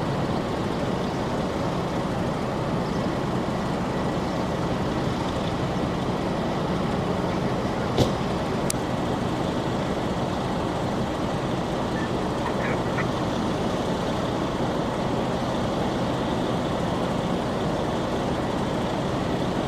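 Fire truck's diesel engine idling steadily, with a sharp click about eight seconds in and a second one just after.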